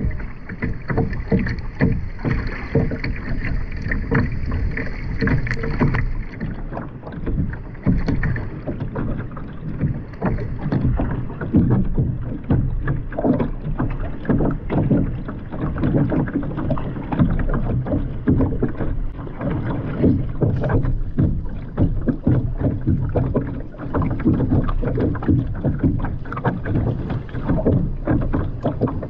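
Kayak paddle strokes splashing in the water and water sloshing against the hull, an irregular run of splashes and knocks.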